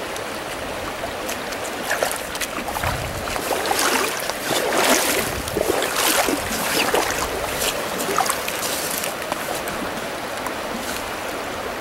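Flowing river water rushing steadily, with a flurry of short, crisp noises through the middle of the stretch.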